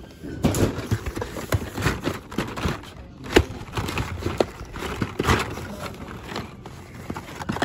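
Hot Wheels blister-carded cars clacking and rustling as a hand flips through them in a cardboard shipping case: irregular plastic clicks and card scrapes, with the sharpest knock about halfway through.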